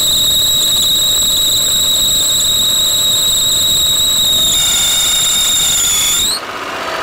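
Alternator belt squealing on a just-started Mitsubishi 6A13 V6: a steady high-pitched whistle over the running engine, which the owner blames on the start having spoiled the belt. About four and a half seconds in the squeal roughens, then rises in pitch and cuts off shortly before the end.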